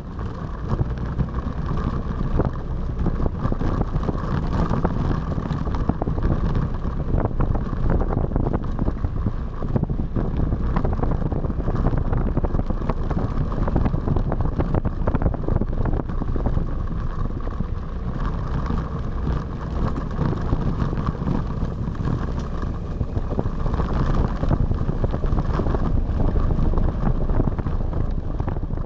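Motor scooter riding along a dirt forest track, heard from a camera mounted on it: the engine runs steadily under a heavy rumble of wind on the microphone.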